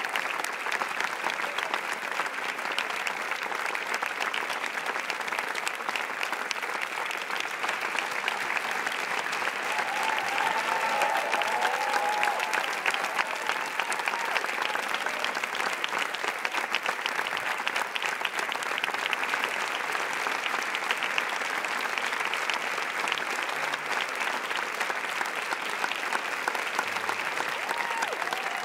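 Large audience clapping in a long, steady ovation, swelling a little about ten seconds in.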